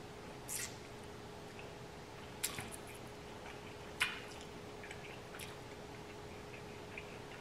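Close-miked eating sounds from a seafood boil eaten by hand: three short, sharp wet mouth smacks and clicks about half a second, two and a half and four seconds in, with a few fainter ticks between them. A faint steady hum runs underneath.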